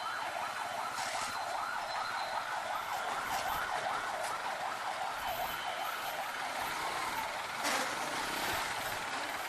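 A siren warbling rapidly up and down, several sweeps a second.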